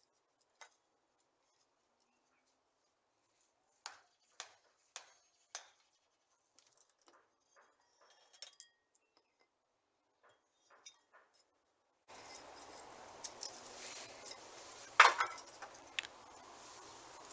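Sharp metal taps and clinks from a Hunter bench grinder's motor housing as it is taken apart and its end cover prised off: four taps about half a second apart, then scattered small clicks, and a loud knock near the end.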